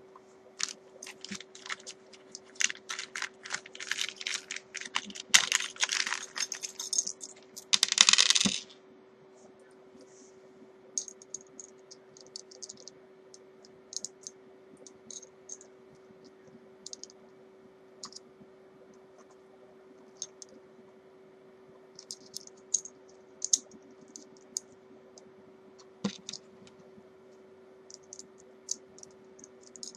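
Small metal parts of a guitar output jack clicking and rattling as they are handled and fitted into the guitar body: dense rattling for the first several seconds, a short scraping rush about eight seconds in, then scattered light clicks. A steady low hum runs underneath.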